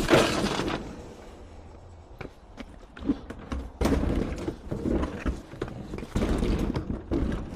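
Scrap appliances being handled: scattered knocks and thuds over a low rumble, with a sharper knock about four seconds in.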